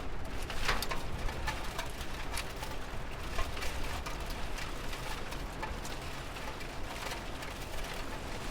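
Steady rain: an even hiss with many separate drops ticking irregularly on a hard surface, over a low rumble.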